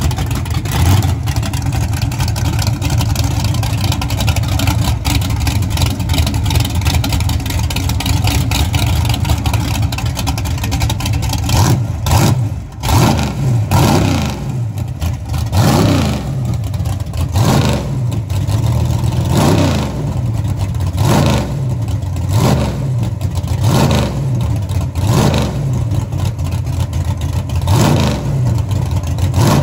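Street race car engine running loud and steady, then revved over and over partway through, the pitch rising and falling about every two seconds.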